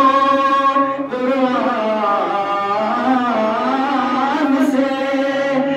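A man's voice chanting a Muharram lament (noha) into a microphone, holding long melodic notes that slide between pitches. The first note is held for about a second before the line moves on in gliding phrases.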